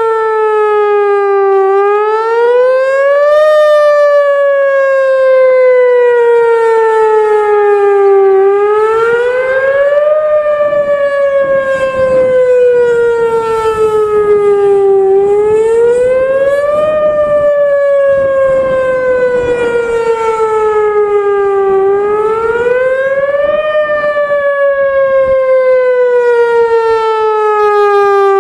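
Whelen Vortex R4 electronic outdoor warning siren sounding a wail during a routine test. The pitch climbs quickly for about two seconds, then sinks slowly for about five, over and over.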